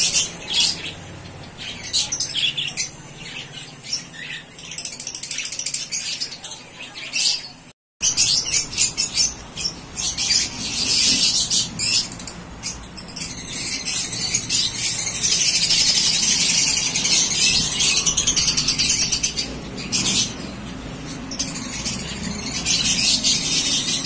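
Many small caged parrots, lovebirds and budgerigars, chattering together in a dense stream of high-pitched chirps and squawks. The sound drops out for a moment about eight seconds in.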